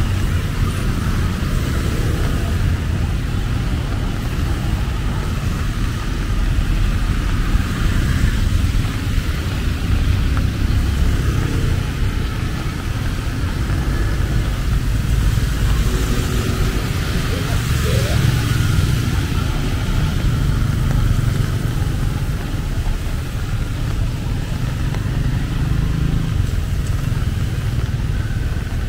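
Steady city traffic of cars, tuk-tuks and motorbikes passing on a rain-wet road, a continuous rumble without sudden events.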